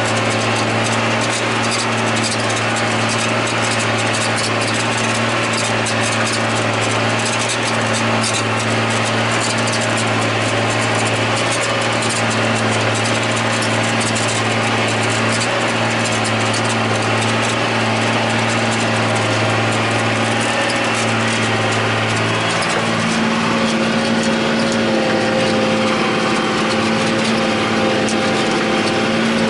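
John Deere 8100 tractor's six-cylinder diesel engine running steadily under load while pulling a disk ripper, heard from inside the cab. The deep hum thins out about three quarters of the way through, leaving a higher engine tone.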